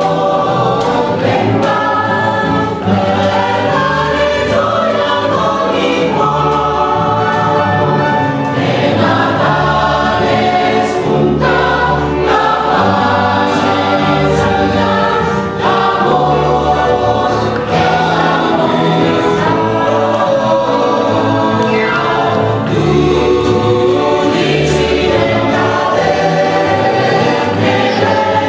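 Mixed choir singing in harmony, accompanied by a double bass playing a line of low notes that changes about once a second.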